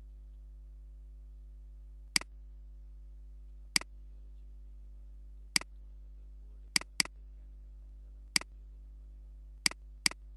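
Computer mouse clicking: eight sharp single clicks spaced a second or two apart, two of them in quick pairs near the end, over a steady low electrical hum.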